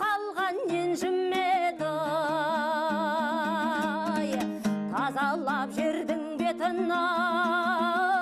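A woman singing a Kazakh folk song in long held notes with strong vibrato, accompanied by a plucked dombra.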